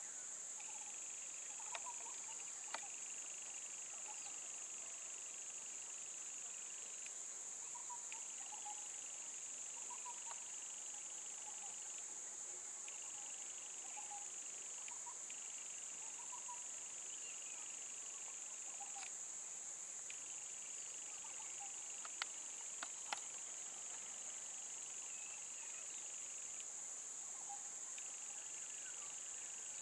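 Outdoor insect chorus: one steady high-pitched drone, with a second, lower insect trill that stops and starts every few seconds. Faint short chirps are scattered through it, and a few sharp clicks come about two seconds in and again around twenty-two seconds in.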